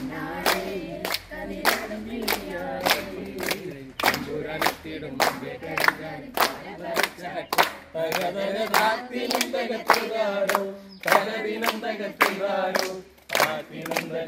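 A group of voices singing a song together, keeping time with steady hand claps at about two a second.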